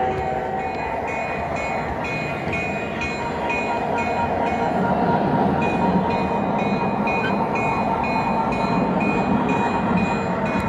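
Model train rolling along the track, heard from on board: a steady running rumble with light regular clicks about twice a second. A train-whistle tone dies away about half a second in.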